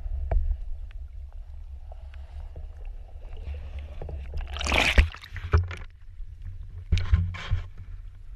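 Sound from a camera held underwater: a steady, muffled low rumble of water with scattered short clicks, and a louder bubbly rush about five seconds in.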